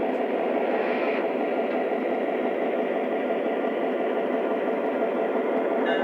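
Lionel Legacy GP9 O-gauge model locomotive running on the layout: a steady mix of its sound system's diesel engine sound and the wheels and motor rolling on the track, thin in the bass.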